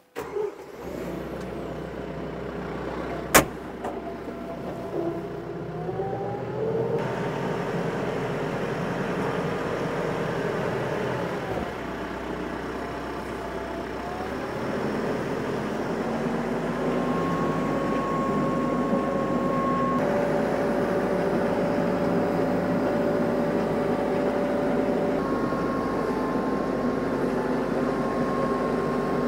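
Tractor engine running, its speed rising and falling several times with steady whining tones over it. A single sharp click sounds about three seconds in.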